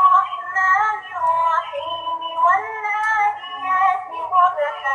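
Islamic children's song: a high female or child-like voice singing over a steady light beat.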